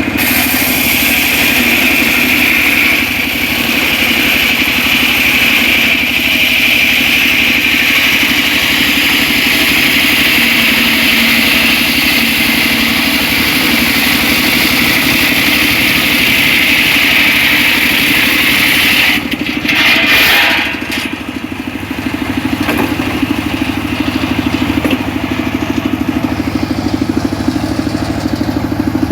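Homemade circular saw running and cutting mahogany, a steady machine drone with a high hissing cutting noise over it. About two-thirds of the way through there is a brief louder disturbance, after which the high cutting noise drops away and the saw runs on more quietly.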